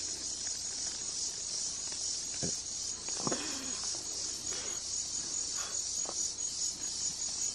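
A chorus of crickets and other night insects, a steady high-pitched trilling.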